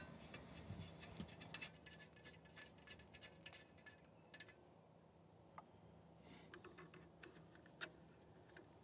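Faint, scattered clicks and light metal ticks from hand work on a furnace combustion blower and its mounting screws, with a screwdriver in use. The clicks come thickest in the first couple of seconds, then thin out to an occasional tick.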